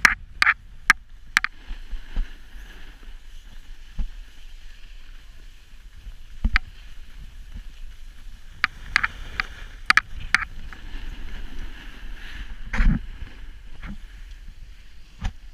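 Snowboard sliding over groomed snow: a steady scraping hiss from the board's base and edges, broken by scattered sharp clicks and knocks, the loudest about thirteen seconds in.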